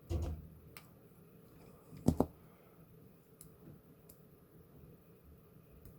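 Handling noises at a workbench: a soft thump at the start, a sharp double knock about two seconds in, then a few faint clicks.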